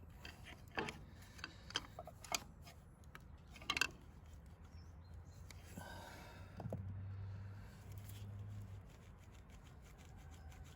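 Scattered light clicks and knocks of hand tools being handled while the radiator hose clamps are worked loose, over a low steady hum. The hum grows a little louder for a few seconds past the middle.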